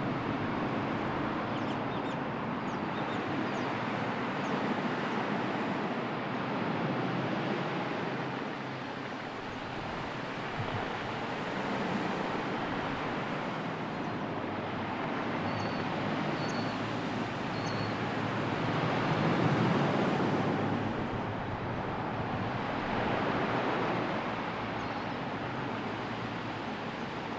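Sea surf washing in, the noise swelling and easing every few seconds. A few short, high bird chirps come about halfway through.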